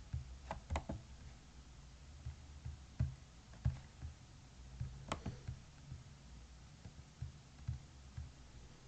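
Faint clicks of a computer mouse and keyboard: a few sharp clicks just after the start and one about five seconds in, with soft low taps scattered between them.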